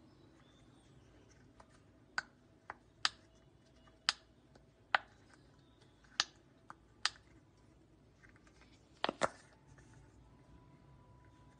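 Silicone pop-it fidget toy bubbles pressed in by thumbs: about ten sharp, separate pops at an uneven pace, with a quick double pop near the end.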